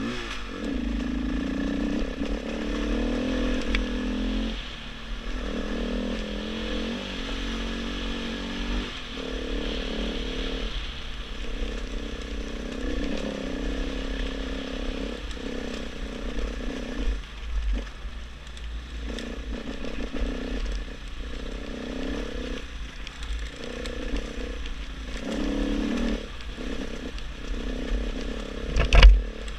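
KTM 500 EXC's single-cylinder four-stroke dirt bike engine running under way, its pitch rising and falling as the throttle is opened and closed. Wind rumbles on the microphone throughout, and a sharp knock is heard near the end.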